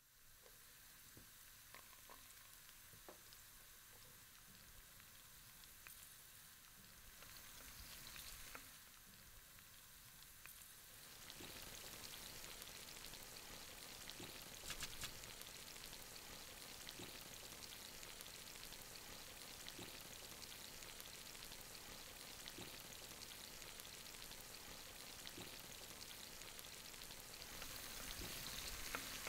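Food frying in a pan on a gas hob: a faint, steady sizzle with small crackles. It grows louder about eleven seconds in, as tomato pieces are dropped into the hot pan.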